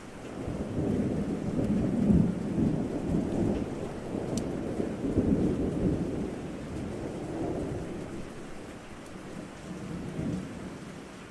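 A long, rolling rumble of thunder over steady rain: it swells about a second in, peaks twice, then slowly fades away near the end.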